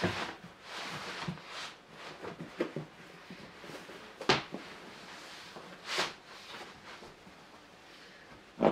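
Handling and rustling of parcel packaging as it is opened, with three short, sharp rustles about four, six and nearly nine seconds in.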